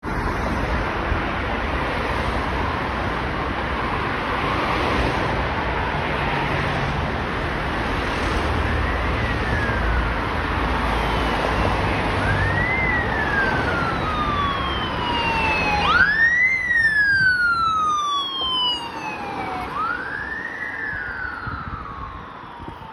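Road traffic noise, then the siren of a Danish fire and rescue emergency van approaching and driving away: a repeating wail that rises quickly and falls slowly, about every three and a half seconds. It comes in faintly about a third of the way in and is loudest about two-thirds through, then fades.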